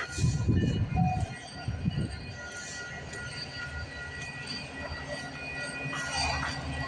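Diesel locomotives of a CPKC freight train passing close by: a heavy, uneven low rumble for the first two seconds or so, settling into a steadier rumble with a few thin steady high-pitched tones ringing above it.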